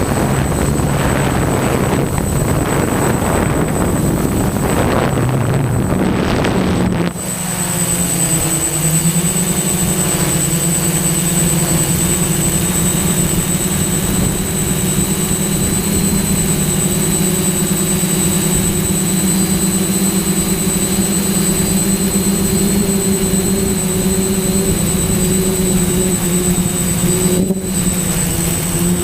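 DJI F550 hexacopter's motors and propellers running steadily in flight. For the first seven seconds wind gusts buffet the microphone, then the buffeting stops abruptly, leaving an even hum a little higher in pitch with a thin high whine over it.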